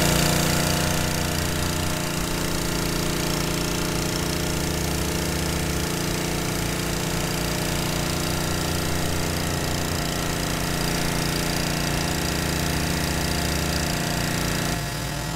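Pressure washer running and feeding a wheeled four-nozzle undercarriage sprayer, its jets blasting onto wet concrete: a steady machine drone under the hiss of the spray. The sound drops slightly just before the end.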